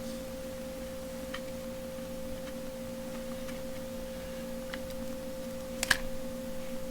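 Steady electrical hum at two pitches, with a few light clicks of the metal rivet-gun nose tips being handled. The clearest click comes near the end.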